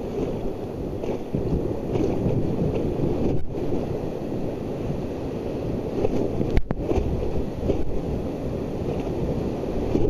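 Whitewater rapids rushing steadily around a raft, a low, dense noise of churning river water heard close to the surface, with a sharp click about six and a half seconds in.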